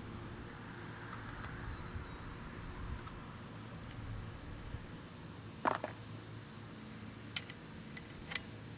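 A few small, sharp clicks over a low steady background hum. The loudest comes a little past halfway, and two fainter ones follow near the end. No shot is fired.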